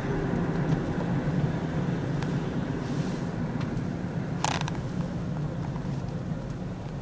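Car cabin noise while driving slowly: a steady low hum of engine and tyres. There is one short click about four and a half seconds in.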